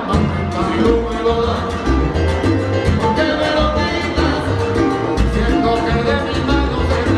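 Live salsa band playing, with singers over percussion, horns and bass; a heavy bass line comes in right at the start.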